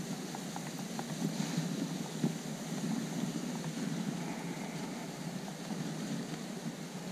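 Dog sled gliding over a packed snow track: a steady rushing noise from the runners, with wind on the microphone and a few faint clicks.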